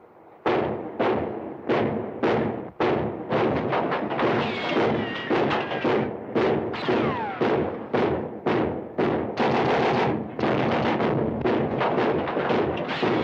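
Warship's guns firing: a rapid, uneven string of sharp gunshots, about two a second, starting about half a second in.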